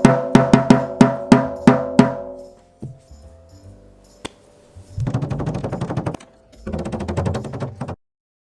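A 12-inch tom is struck over and over while its head is being tuned, about four hits a second, each ringing with a clear pitch, for the first two seconds. After a short pause come two quick rolls of fast, light taps on the drum, each about a second long.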